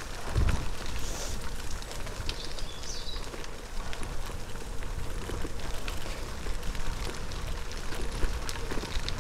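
Bicycle tyres rolling over a gravel towpath: a steady crackle of many small clicks, with wind rumbling on the microphone.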